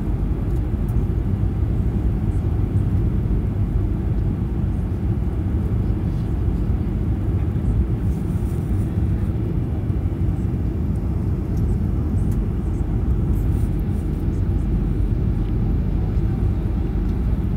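Steady low rumble of cabin noise inside a Boeing 737-800 descending to land: the CFM56 turbofans and the airflow heard through the fuselage.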